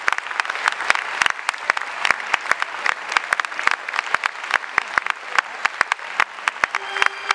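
Theatre audience applauding: dense, irregular hand clapping that keeps up steadily.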